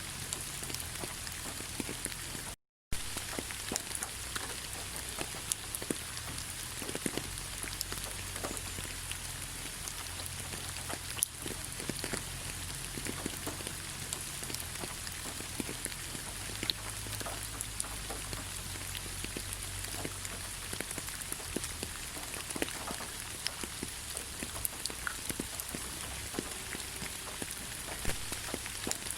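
Steady rain falling, with many separate drop ticks over an even hiss. The sound cuts out completely for a fraction of a second about three seconds in.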